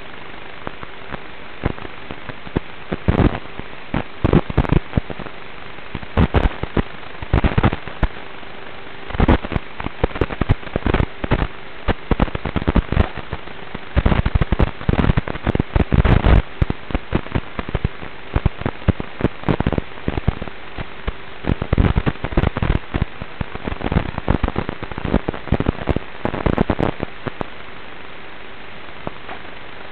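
Traxxas Slash 1/10-scale RC truck driving over dirt and grass, picked up by a small onboard camera microphone: irregular bursts of loud, distorted crackling as the truck jolts over the rough ground, over a steady hiss and faint hum. It is quieter in a short stretch near the end.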